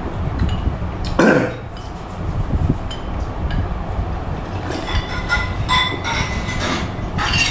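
A person slurping and sipping phở broth and noodles from a bowl, in soft irregular bursts that thicken over the last few seconds. About a second in there is a short throaty vocal sound.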